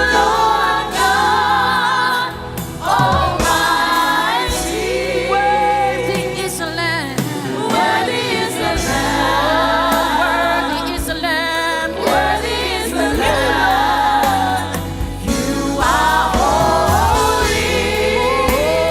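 Live gospel worship music: singers with choir-like backing voices over sustained band accompaniment.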